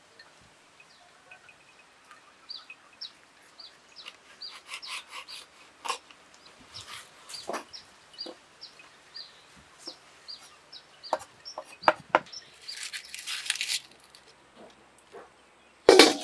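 A bird, likely a chicken, chirping in short, evenly repeated high calls, about two a second, amid scattered clicks and knocks. A brief rustle comes about 13 seconds in, and a loud knock near the end.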